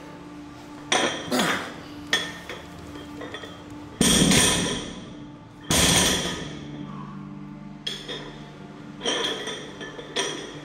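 Heavy iron dumbbells clanking and thudding in a series of sharp metal knocks, with two loud heavy impacts about four and six seconds in that ring on for about a second each.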